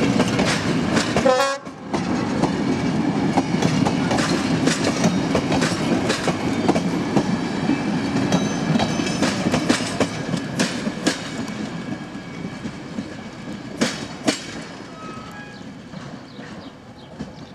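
Passenger coaches rolling past on the rails, their wheels clicking over the rail joints. The sound dies away gradually as the train draws off, with a brief cut-out about a second and a half in.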